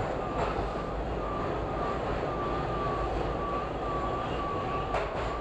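Toronto subway train running through a tunnel: a steady rumble with a whine that wavers up and down about twice a second. A sharp click sounds about half a second in and another near the end.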